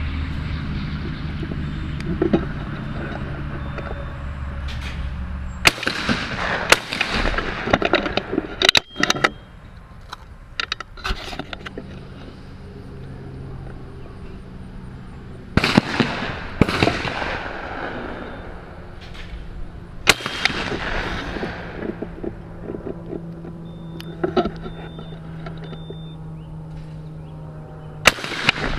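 Shotgun shots on a skeet range: several sharp reports, some in quick pairs, each with a short echoing tail. A low rumble runs under the first six seconds and stops at the first shot.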